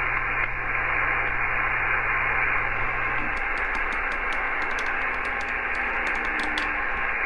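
Icom IC-M700 HF SSB receiver hissing with steady band noise from its speaker as it is tuned across the 40 m band, with no station coming through. A low hum drops out about three seconds in, and light clicks from the knob being turned come in the second half.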